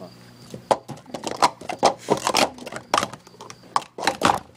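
Plastic sport-stacking cups being stacked up into three pyramids and back down at speed in a 3-6-3 sequence: a quick run of plastic clacks and rattles, starting under a second in and stopping about four seconds in.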